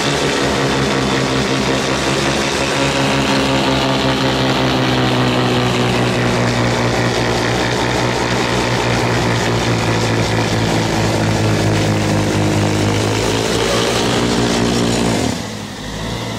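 Small tractor engine running steadily under load, driving a snow blower attachment as it clears snow. Near the end the sound suddenly drops and the engine note falls away.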